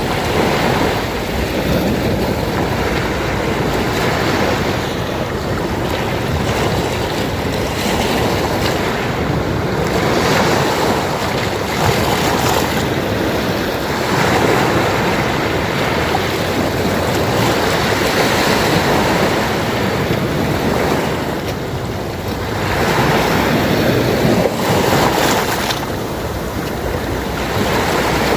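Small sea waves washing ashore in continuous surf, swelling and easing every few seconds.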